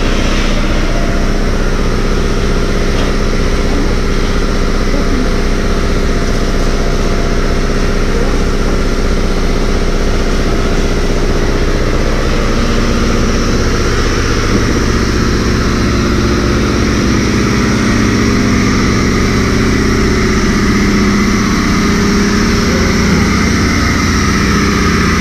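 High-pressure water jet hissing against a truck trailer, over a steady engine drone.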